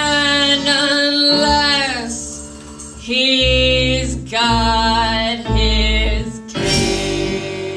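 A woman singing long held notes, one sliding downward, over a small live band of piano, upright bass, drums and accordion.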